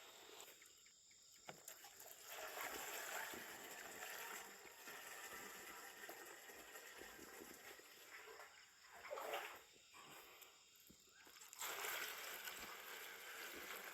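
Water splashing and trickling onto chili plants and soil as they are watered, faint and coming in several spells.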